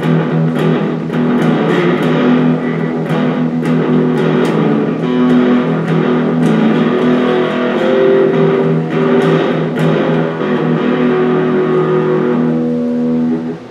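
Electric guitar being played as a sound check of newly installed pickups: picked notes and chords ringing out, fading away near the end.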